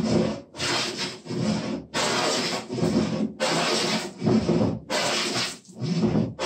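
Wooden jointer plane taking full-length shavings off a workbench top to flatten it: about six strokes, roughly one a second, each a shearing hiss with a brief gap between strokes as the plane is drawn back.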